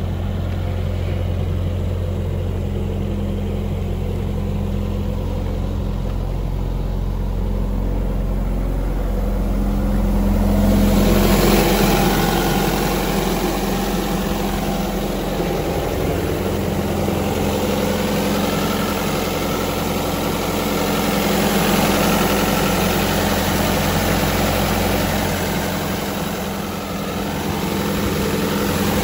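The Kubota V2403 four-cylinder diesel engine of an Atlas Copco XATS138 portable air compressor idling steadily. The sound turns noticeably brighter about eleven seconds in and stays so.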